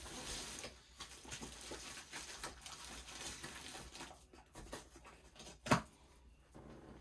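Soft rustling and small taps of packaging being handled, with one sharp click a little before the end.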